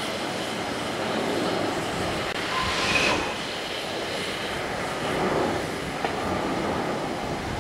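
Steam hissing and blowing from the LNER Peppercorn A1 Pacific steam locomotive 60163 Tornado as it stands at the platform, in a steady loud rush. A brief higher-pitched tone stands out about three seconds in.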